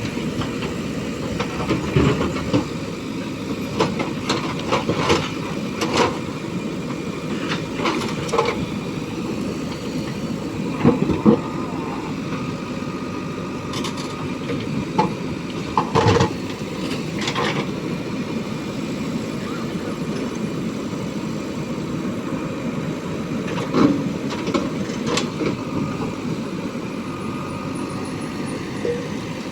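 JCB 3DX backhoe loader's diesel engine running steadily, with scattered clanks and knocks as the machine works.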